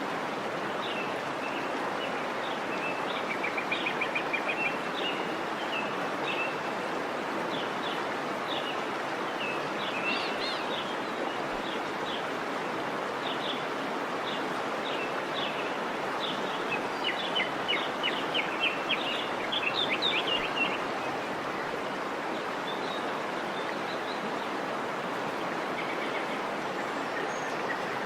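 Steady rush of a waterfall, with small birds chirping over it in quick runs of short notes, busiest about a third and two thirds of the way through.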